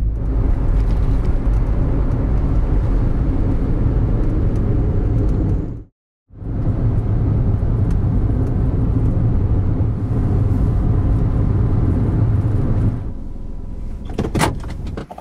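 Daihatsu Wake kei car driving: steady low road and engine rumble that breaks off for a moment about six seconds in, then drops quieter near the end with a few clicks.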